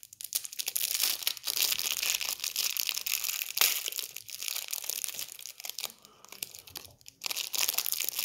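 Clear plastic candy wrapper being unwrapped from a coiled sweet by hand, crinkling and crackling in many rapid irregular bits.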